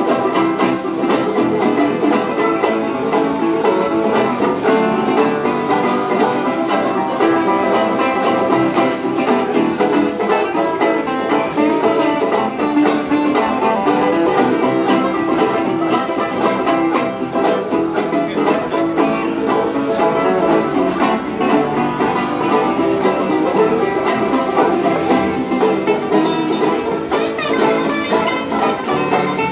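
Acoustic string band playing live: an open-back banjo, an acoustic guitar and other small plucked string instruments picking and strumming together at a steady tempo.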